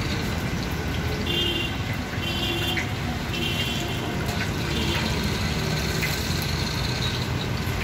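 Hot oil sizzling steadily in a large iron kadai as battered bread pakoras deep-fry. A horn beeps briefly three times during the first four seconds or so.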